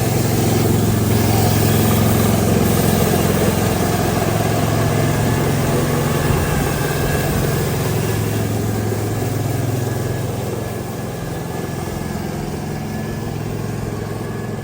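A motor vehicle's engine running close by with a steady low hum over street noise, easing off a little after about eight seconds.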